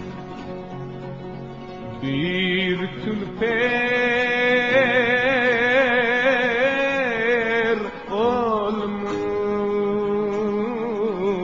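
Song music: a lead melody in long notes with a heavy vibrato, one held through the middle, over steady accompaniment.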